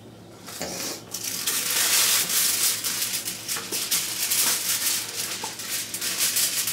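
Aluminium foil being pulled off its roll and handled, crinkling and crackling in a dense run of sharp little crackles that starts about half a second in.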